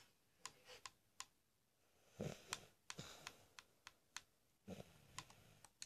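Faint, irregular clicks and taps, about ten of them, with a couple of soft thuds about two seconds in and near the end, against near silence.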